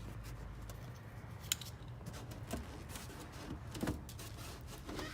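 Quiet handling sounds of plastic bumper push-pin clips and a flathead screwdriver, with one sharp click about a second and a half in, over a low steady hum.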